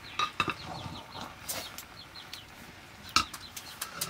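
Chickens peeping over and over in short, high, falling calls, with a few sharp knocks from a stirring stick against a metal cooking pot. The loudest knock comes about three seconds in.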